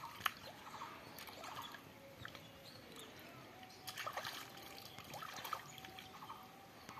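Hands groping in shallow muddy water, feeling through the mud for fish: faint sloshing and trickling with small splashes, busiest about four seconds in.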